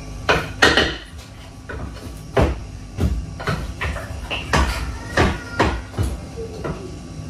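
A wooden spoon knocking and scraping against a metal cooking pot as pieces of parboiled guinea fowl meat are lifted out and moved to another pot. The knocks come at irregular intervals, about a dozen sharp ones.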